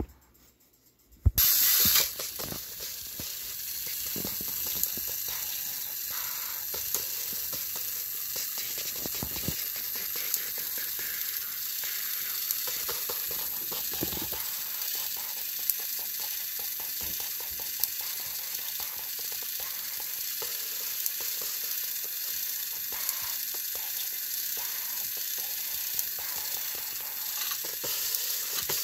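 Two battery-powered Thomas & Friends toy engines pushing head to head on plastic track, stalled against each other. Their motors run with a steady high whir, and their wheels click and hiss as they spin on the track. The sound starts suddenly about a second in.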